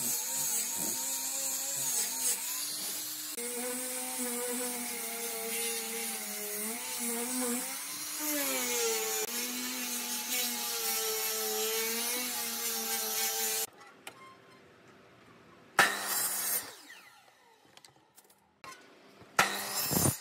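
Angle grinder with a sanding disc running against wooden strips, its motor pitch wavering as the load changes. It stops about two-thirds of the way through, and two short, loud bursts of noise follow near the end.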